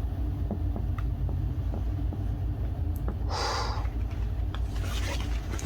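Handling of a laptop as its lid is opened: a few light clicks and a short rustle about three seconds in, over a steady low rumble.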